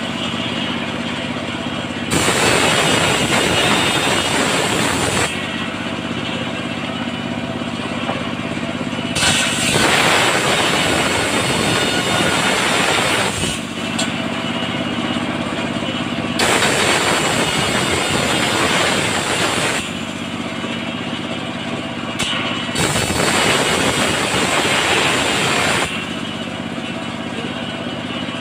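A large engine-driven circular saw on a mobile sawmill ripping sengon boards into rafters and battens. The engine runs steadily throughout, and about four times the blade bites into a board, each cut lasting three to four seconds and louder and hissier than the running in between.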